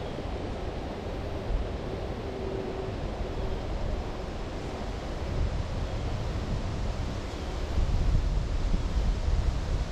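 Wind buffeting the microphone over a steady rush of creek water, gustier near the end.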